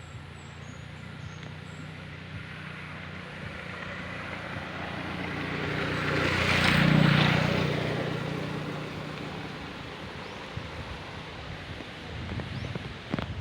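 A motor vehicle passing by: its engine grows louder to a peak about seven seconds in, then fades away.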